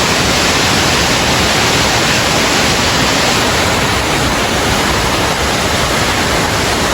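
Waterfall rushing: a loud, steady roar of falling water with no change throughout.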